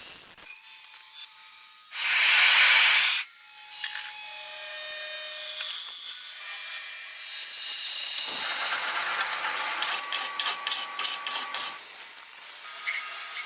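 Workshop tool sounds from knife-making in quick succession: a loud hissing burst about two seconds in that lasts about a second, then scraping and rubbing, and a run of quick rasping strokes near the end.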